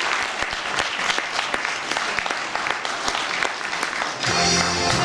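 Audience applauding, a dense crackle of many hands clapping. About four seconds in, music with sustained tones starts over the last of the clapping.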